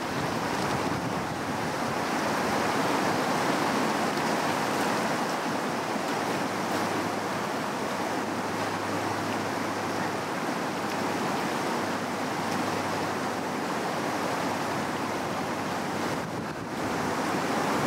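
A shallow mountain river rushing steadily over boulders and small rapids.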